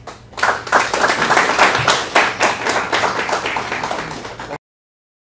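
Small audience applauding: many overlapping hand claps that start about half a second in and stop abruptly after about four seconds.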